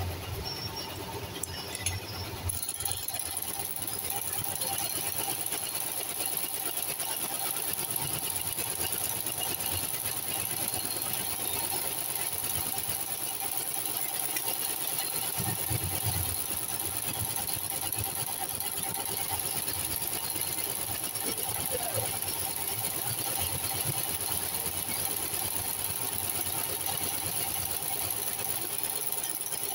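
Industrial knitwear seaming machine running steadily as a sweater is sewn, a constant mechanical hum with a high steady hiss that sets in a couple of seconds in. Occasional low thumps come through.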